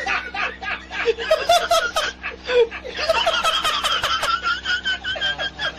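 Laughter sound effect: quick bursts of snickering laughs, turning into a higher, squeaky run of rapid laughs from about three seconds in.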